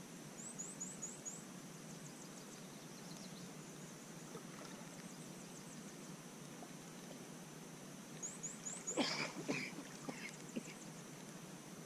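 Quiet lakeshore sound with a steady high hiss and a small bird's quick run of high rising chirps, twice. About nine seconds in there is a short burst of water splashing and sloshing as someone moves while standing in the shallows.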